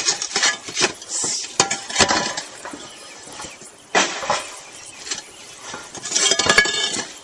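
Roof tiles clinking and knocking against each other as they are lifted and moved, in irregular bursts, busiest near the start, about four seconds in and again near the end.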